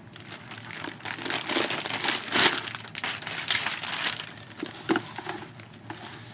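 Plastic packaging crinkling and rustling in irregular bursts as the oscilloscope is unwrapped from its bag, loudest in the middle.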